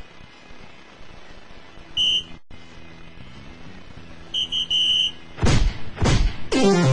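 Electronic soft-tip dartboard sound effects: a short electronic beep as a dart scores a single 20 about two seconds in, and a quick run of beeps as the next dart lands in the triple 20 near the middle. Then come three loud falling electronic swooshes.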